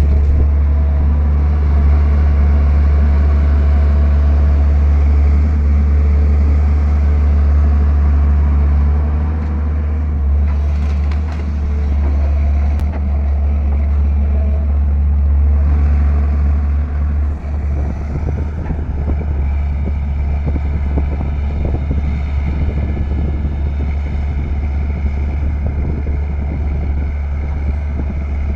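Caterpillar 320 hydraulic excavator's diesel engine running steadily under working load, a loud deep drone that grows rougher about two-thirds of the way through.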